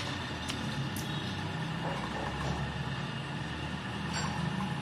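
Low steady rumble of an engine running in the background, with a few light clicks near the start and about four seconds in.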